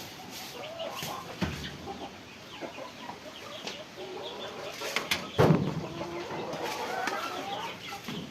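Chickens clucking and calling, with a few sharp knocks and a loud thump about five seconds in.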